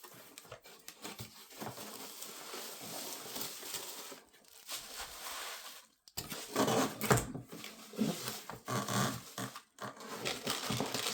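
The cardboard box and packaging of a toy RC tank being handled and opened: a steady scraping rustle for about four seconds, then, after a brief pause, irregular rustling and light knocks.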